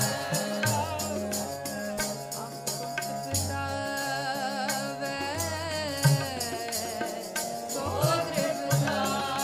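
Sikh kirtan: a woman singing a Gurbani shabad in long, wavering lines over steady held harmonium chords, with drum strokes and a regular jingling percussion beat.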